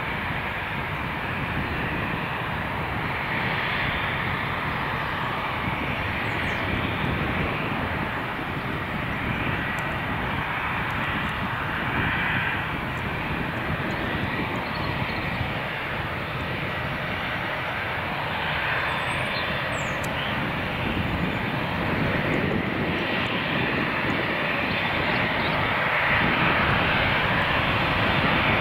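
Boeing 787's twin Rolls-Royce Trent 1000 turbofans running at low taxi thrust as the jet turns onto the runway: a steady jet rumble and hiss with a faint high whine, getting a little louder near the end.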